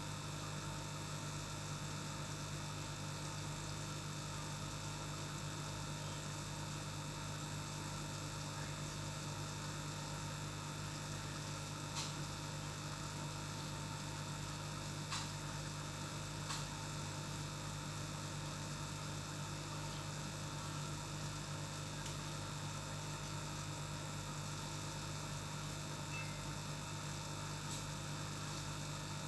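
Aquarium air pump humming steadily under an even hiss, with three faint clicks midway.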